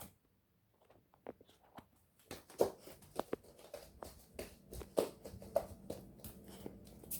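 Faint scattered footsteps and handling knocks. A low steady hum comes in over the last couple of seconds.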